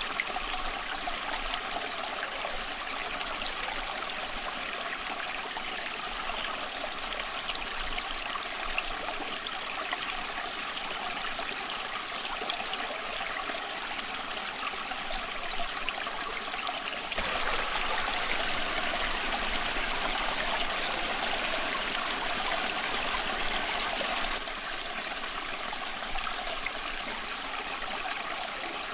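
Creek water flowing and trickling steadily. It grows louder for several seconds about two-thirds of the way through, then settles back.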